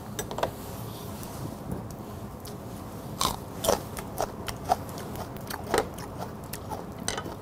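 Crunchy bites and chewing of a raw green chili pepper, close to the mouth. A run of sharp, crisp crunches starts about three seconds in and comes several times a second.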